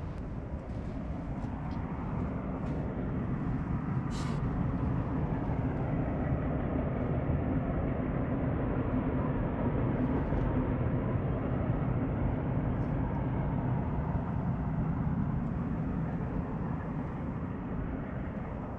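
A distant low vehicle rumble that swells over several seconds and fades again, like something passing by far below. There is a brief high click about four seconds in.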